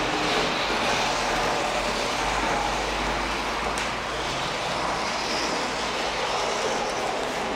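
Märklin model train running along its track, a steady rolling noise of the wheels and motor.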